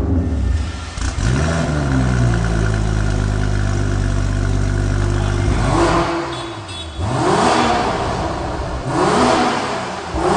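Stage 2 tuned BMW turbocharged straight-six with an aftermarket exhaust, revved hard. It holds steady revs for several seconds, then gives four quick blips of the throttle, each rising and falling.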